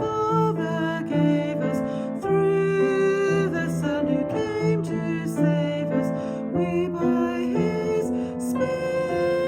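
Slow hymn music with piano accompaniment and a sustained melody line over a steady bass.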